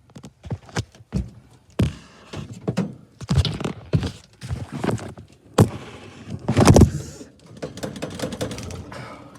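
Sheet-metal furnace access panel being worked loose and handled: an irregular run of knocks, thunks and scraping, loudest about two-thirds of the way through.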